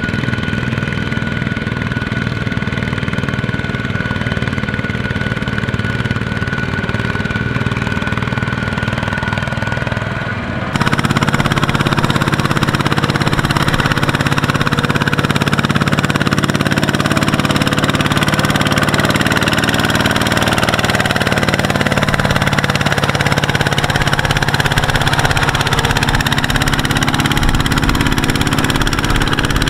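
Single-cylinder diesel engines of two-wheel walking tractors running under load as they haul loaded trailers through mud. About ten seconds in the sound changes abruptly to a louder, fuller engine run.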